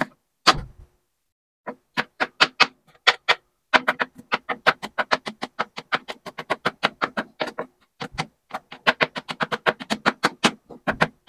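A kitchen knife chopping fast on a cutting board: quick, even knocks, about five or six a second, that stop briefly about two-thirds of the way through and then resume.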